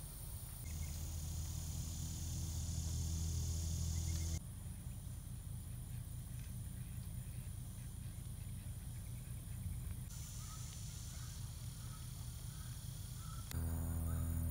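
Outdoor rural ambience with a steady low hum and a high steady tone, changing abruptly several times; about a second before the end, geese start honking.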